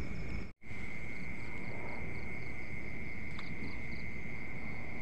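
Insects trilling: one steady, unbroken high trill, with a fainter, higher chirp pulsing about three times a second over it until near the end. The sound cuts out completely for an instant about half a second in.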